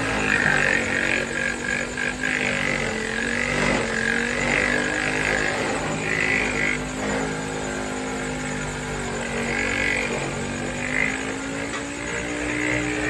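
Power sander running steadily on a car fender, its motor hum wavering slightly in pitch, with a scratchy rasp of abrasive on metal that comes and goes.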